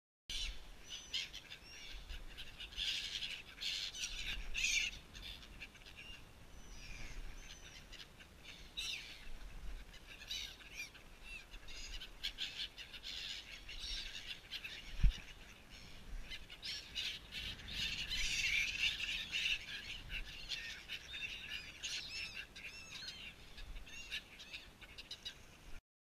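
A flock of gulls calling overhead: many short, overlapping cries, busiest near the start and again from about 17 seconds. There is one sharp thump about halfway through.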